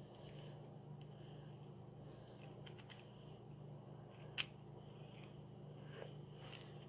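Faint small metal clicks of a key being worked in a padlock that will not open, a few light clicks with one sharper click about four seconds in, over a steady low hum.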